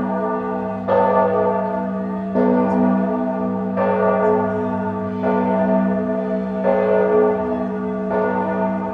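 Church bell tolling, struck about every second and a half, each stroke ringing on into the next.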